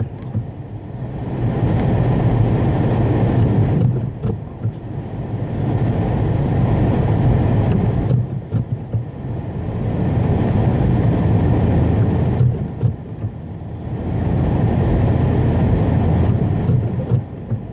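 Car driving through snow: a steady low rumble of tyres and engine that dips and swells again about every four seconds.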